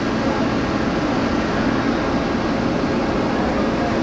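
Steady rumble of heavy machinery running, with no sudden knocks or changes.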